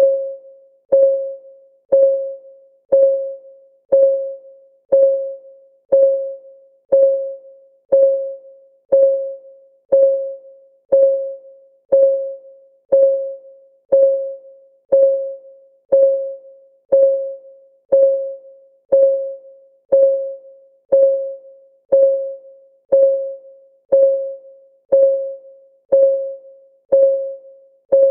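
Clock-ticking sound effect of a countdown timer, a steady tick once a second. Each tick is a short click with a brief pitched ring that quickly dies away.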